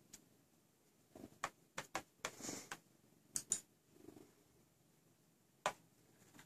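Scattered sharp taps and knocks of a cat's paws striking a computer monitor screen. A short scratchy rustle comes about two and a half seconds in.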